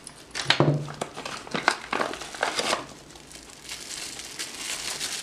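Clear plastic packaging bags crinkling as they are handled. There are several sharp rustles in the first three seconds, then a steady fine crinkling.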